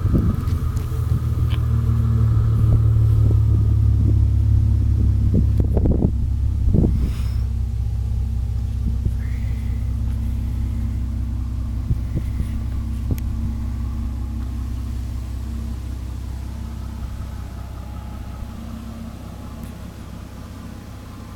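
Mitsubishi Galant 2.5 L V6 running at low revs through a home-built exhaust with the silencer removed, giving a deep, steady note. It is loudest in the first several seconds, then slowly gets quieter.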